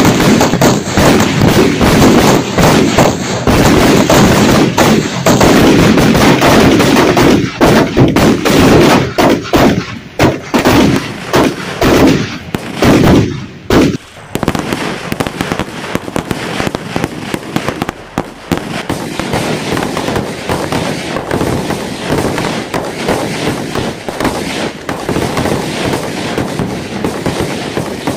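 Mini bullet firecrackers and green sutli bombs packed in a tyre going off together in a rapid, overlapping barrage of loud bangs and crackles. About halfway through the bangs drop to a lighter, steady crackling.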